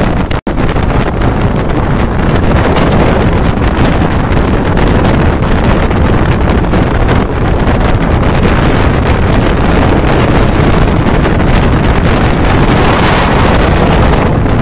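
Heavy wind buffeting the microphone of a phone held out of a moving passenger train, over the coach's steady running noise on the rails.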